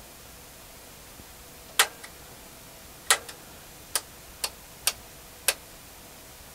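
Rotary selector switch on an AWA F242A distortion and noise meter being turned by hand: six sharp detent clicks, irregularly spaced, the first two the loudest, as the meter's frequency range is stepped to 2 kHz.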